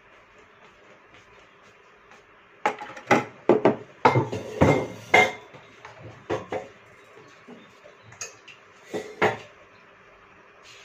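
Dishes and cutlery clinking and knocking as a plate of food is set down and handled on a table. There is a run of separate clatters about three seconds in, with a few more clinks near nine seconds.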